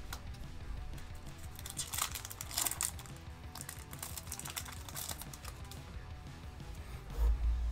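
Background music under runs of quick, sharp clicks and rustles, clustered about two seconds in and again around four to five seconds, with a low thump near the end.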